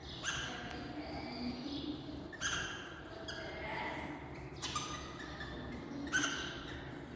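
Parrots squawking: four loud, harsh calls about two seconds apart, with softer chattering calls in between.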